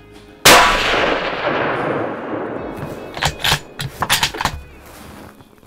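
A single deer-rifle shot, a sudden loud crack whose echo rolls on and fades over about two seconds. A few quick sharp clicks follow about three seconds in.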